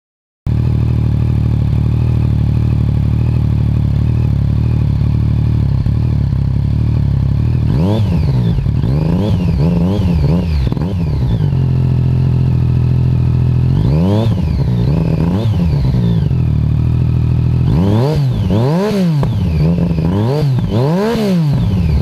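Yamaha MT-09's inline three-cylinder engine through a Termignoni carbon-fibre silencer, idling steadily and then revved in short throttle blips. There is a cluster of blips about eight seconds in, a couple more around fourteen seconds, and a quick run of repeated blips near the end.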